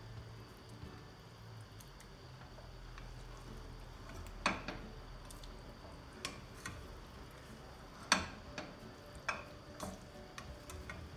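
Wooden spoon knocking against a stainless-steel frying pan and the rim of a pot while fried green peppers are scooped across: about five sharp taps, one to two seconds apart.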